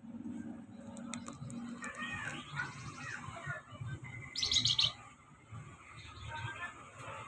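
Small caged songbird chirping in short high calls, with a louder burst of rapid high notes about four and a half seconds in.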